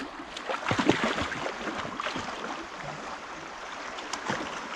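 A dog splashing as it wades into a fast-flowing, shallow river, over the steady rush of the water. The splashing is heaviest about a second in, then thins to a few scattered splashes.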